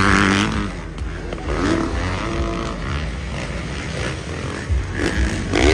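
Motocross dirt bike engines revving as the bikes race along the track, pitch rising and falling. A rising rev opens it and another rises near the end.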